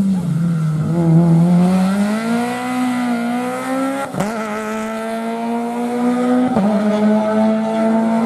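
Rally car engine pulling hard at high revs, its pitch climbing, with two quick gear changes about four and six and a half seconds in.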